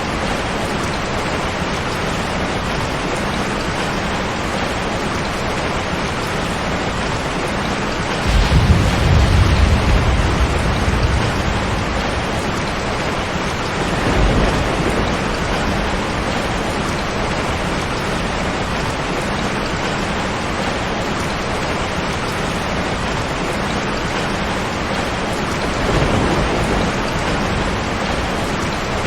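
Heavy rain falling steadily on a tin roof, with thunder rumbling three times: a loud low rumble about eight seconds in that lasts a few seconds, a shorter one around fourteen seconds, and a third near the end.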